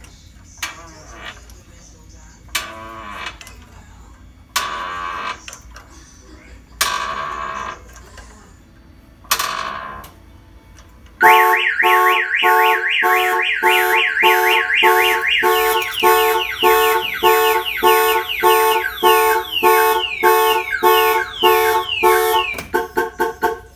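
A car being lifted on a jack, heard as a few short scraping strokes. About eleven seconds in, the Viper alarm's siren goes off, set off by its tilt sensor. The siren is loud and cycles through a rapid warble and other repeating tone patterns.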